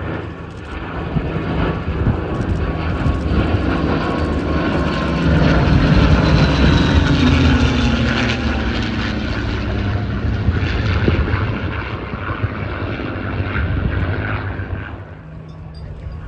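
Propeller-driven aircraft making a pass. Its engine noise swells to a peak about six to eight seconds in, the pitch drops as it goes by, and it then fades away near the end.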